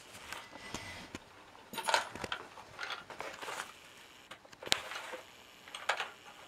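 Handling noise: a thin plastic bag and a paper leaflet rustle in a few short bursts as they are moved about, with one sharp click a little before five seconds in, as the plastic spring scale is set down on a carpeted surface.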